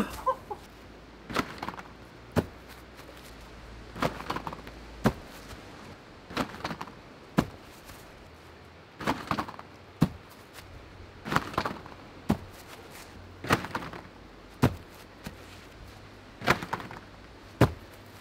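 Mini trampoline bounces and landings on grass during backyard freerunning: pairs of short thuds about a second apart, a bounce then a landing, repeated about seven times at a steady pace.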